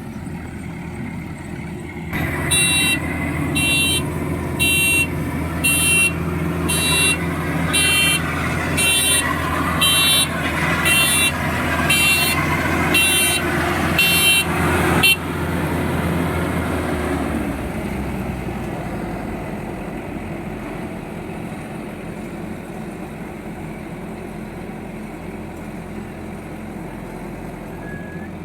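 A farm machine's diesel engine running steadily. Over it an electronic horn or alarm beeps high and shrill, about one and a half times a second, for roughly thirteen beeps, and then cuts off suddenly. The engine then settles a little quieter.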